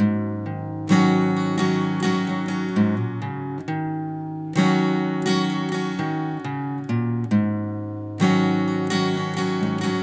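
Morris MF-255TS acoustic guitar being played: three full strummed chords about three and a half seconds apart, each left to ring out, with lighter picked notes in between.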